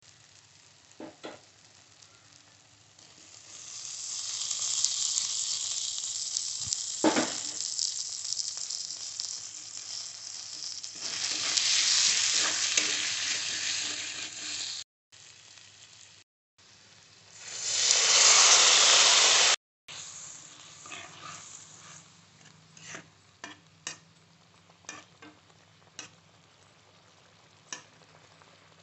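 Spiced onion masala and potato pieces sizzling in hot oil in a coated kadai, stirred with a flat spatula. The sizzling comes in stretches that stop abruptly, with the loudest rush of sizzling about 17 to 20 seconds in. After that come scattered short scrapes and taps of the spatula against the pan.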